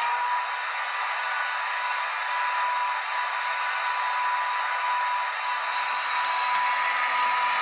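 Model diesel locomotive's sound-fitted engine running steadily, a tinny, hissy whirr with a steady whine. A low rumble joins near the end as the model pulls away along the track.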